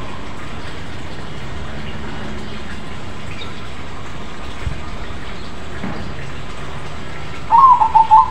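Crossbred zebra dove (perkutut) starting its coo near the end: a loud burst of quick, stuttering notes over a steady background hiss.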